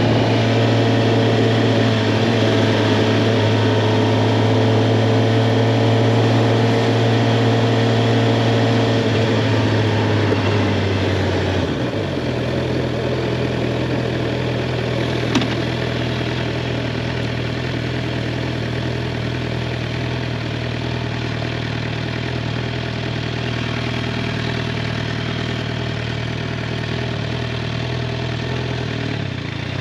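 Suzuki GSX-R 750's inline-four engine running at a steady pitch. Its note drops about twelve seconds in and holds lower, then starts to rise again near the end. A single short click comes a few seconds after the drop.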